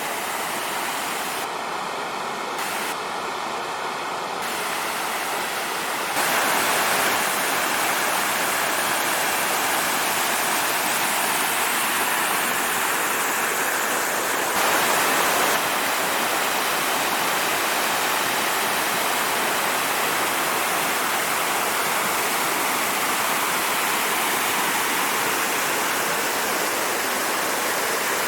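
Waterfall rushing steadily close by, a continuous noise of falling water that grows louder about six seconds in.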